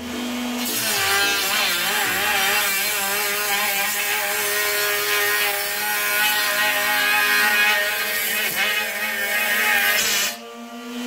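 Handheld grinder with a cut-off wheel cutting through steel, a harsh grinding noise with a whine that wavers in pitch as the wheel loads in the cut. Near the end the wheel briefly leaves the cut and the noise drops to a steadier hum.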